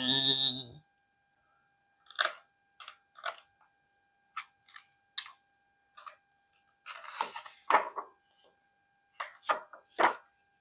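Scattered short paper rustles and soft taps of a hand rubbing and pressing on the open pages of a hardcover picture book, with a denser cluster about seven seconds in and a few more near the end.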